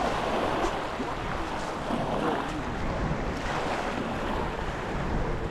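Small sea waves washing onto the shore, with wind buffeting the microphone.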